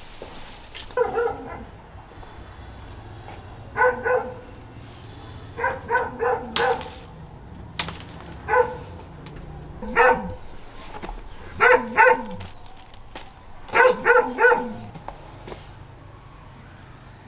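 A dog barking in short clusters of one to four barks, again and again for about fifteen seconds.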